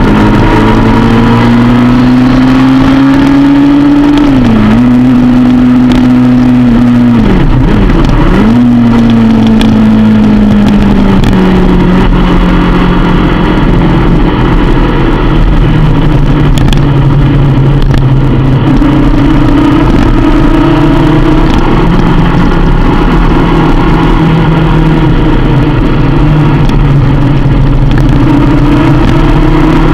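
Sport motorcycle engine revving hard as heard from a camera mounted on the bike, under heavy wind and road rush. The engine note climbs, drops sharply and recovers twice in the first ten seconds, then runs lower and steadier before rising again near the end.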